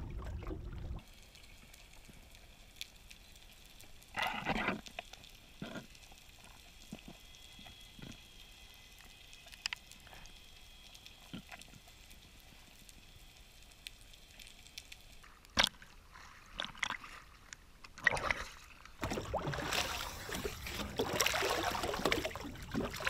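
Muffled underwater sound, as heard by a camera below the surface: a faint hiss with scattered clicks and a few short bubbly gurgles. Near the end, water splashing and sloshing as a swimmer surfaces and grips the side of a boat.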